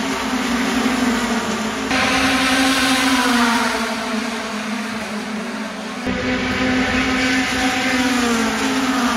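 Mazda MX-5 Cup race cars going past at speed, their four-cylinder engines droning under full throttle, the pitch falling as the cars pass by.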